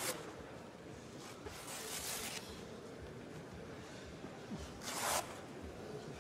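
Three short rasping noises over the faint background of a large sports hall: one right at the start, one about two seconds in and one about five seconds in.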